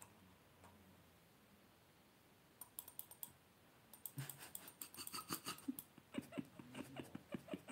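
Near silence, then faint, irregular clicks and taps from fingers handling the recording phone, sparse at first and coming more often from about four seconds in.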